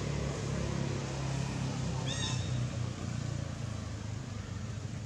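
A short, high-pitched squeal from a young long-tailed macaque about two seconds in, over a steady low hum.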